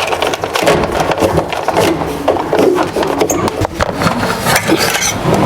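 Electrical cable being pulled down through a hole in a wooden bookshelf, scraping and rubbing against the wood in a run of irregular scrapes.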